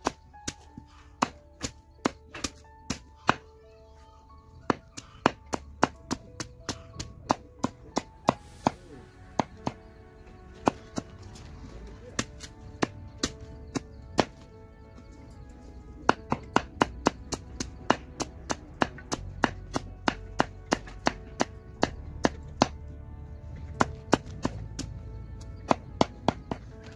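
Banana tree stem being chopped with a blade: sharp, repeated chops at roughly two a second, in runs with short pauses between them.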